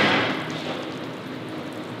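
Steady hiss and hum of slaughter-hall equipment in a hard, echoing room. A louder rush of noise fades away over the first half second.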